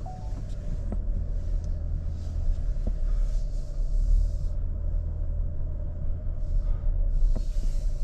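Low steady rumble of a car moving slowly, heard from inside the cabin, with a few light clicks.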